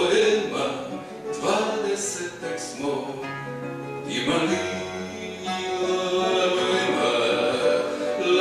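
A man singing live to his own strummed acoustic guitar, holding one long note through the second half.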